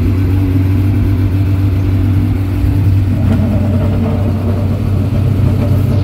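Race car engines idling in a steady low drone, with a higher engine note joining about three seconds in.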